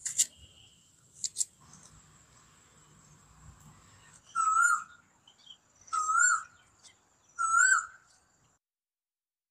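A bird calling three times, each call one wavering whistled note lasting about half a second, roughly a second and a half apart, over a faint steady high whine. A few light clicks come in the first second and a half.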